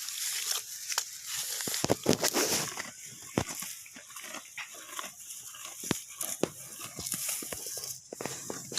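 A domestic animal calling around two seconds in, among scattered short clicks and knocks and a steady high hiss.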